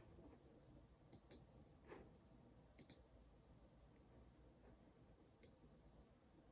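Faint, sparse clicks of keys on a Keychron mechanical keyboard: a quick pair about a second in, a duller tap, another quick pair, then a single click a few seconds later.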